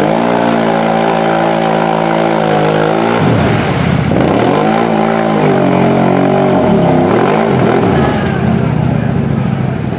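Engine of a lifted mud ATV on oversized tyres, working hard as it churns through deep mud. It is held at high revs for about three seconds, then drops off and revs back up twice before settling lower near the end.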